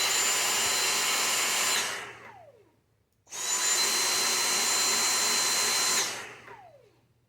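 Dyson cordless stick vacuum's motor whining up to full speed, running about two seconds, then cutting out and winding down with a falling tone, twice in a row. This start-stop pulsing is the fault known as the "puff thing".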